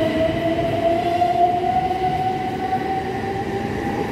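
Class 377 Electrostar electric multiple unit accelerating along the platform. Its traction motors give a whine that rises slowly and steadily in pitch over the rumble of the train, with a fixed high tone above.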